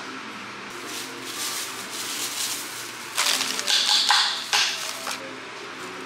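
Crinkling and crackling of the paper under a slab of dalgona honeycomb toffee and of plastic gloves as the slab is handled and lifted, with a louder burst of crackling about three seconds in.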